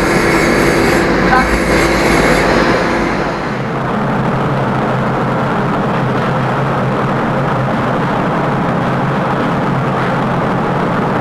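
Genset room ventilation fan and machinery running with a steady noise. About three and a half seconds in the high hiss falls away, leaving a lower, steady hum.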